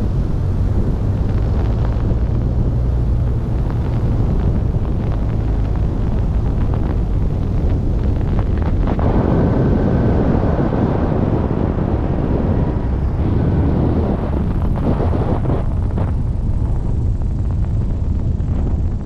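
Single-engine light airplane's piston engine and propeller running steadily at low power on final approach, with wind on the microphone. About nine seconds in, a louder rumble of noise rises as the plane touches down on the grass strip and rolls out, and a brief steady high tone sounds at the same moment.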